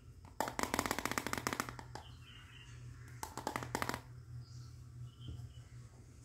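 Rapid plastic clicking and rattling from a small toy frying pan and its clear plastic lid being handled. It comes in two bursts: one lasting over a second near the start, then a shorter one about three seconds in.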